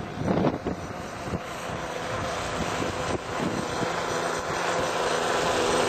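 Radio-controlled AT-6 Texan model airplane's motor and propeller humming steadily in flight, gradually growing louder. Gusts of wind on the microphone in the first second or so.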